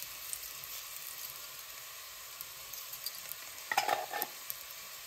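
Potato chunks shallow-frying in mustard oil in a stainless steel pan: a steady soft sizzle, with a few quick clinks about four seconds in.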